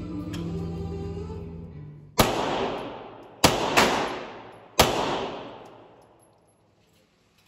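Background music that ends about two seconds in, then four gunshots at an indoor shooting range, the middle two close together. Each shot rings on with a long echo off the range walls.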